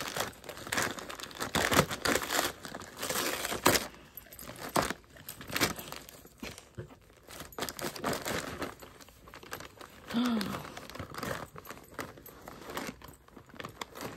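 Gift-wrapping paper crinkling and tearing in irregular bursts as a Newfoundland dog noses, bites and pulls at a wrapped present.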